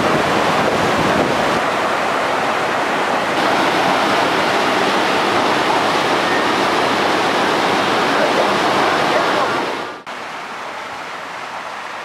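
Waterfall rushing: a loud, steady sound of falling water. About ten seconds in it cuts off abruptly to a quieter, steady rush of water.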